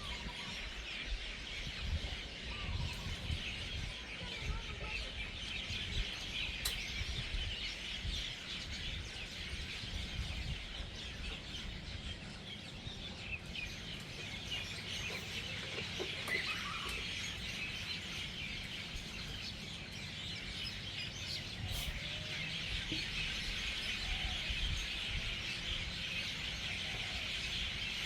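A large flock of birds chattering and chirping together at their evening roost: a dense, continuous din of overlapping calls, with a low rumble underneath.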